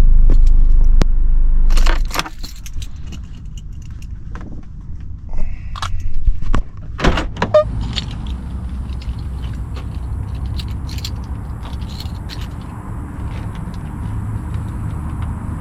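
A car's engine and air conditioning running, then switched off about two seconds in; after it, keys jangling, clicks and the knocks of car doors being opened and shut.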